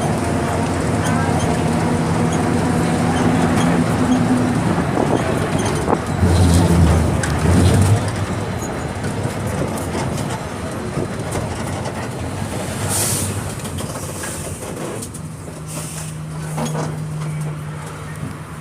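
Diesel engine of a Volkswagen 17.230 EOD bus running under way, a steady droning note that fades into rattling road noise mid-way and returns near the end. A louder patch of low thumps comes between about six and eight seconds in.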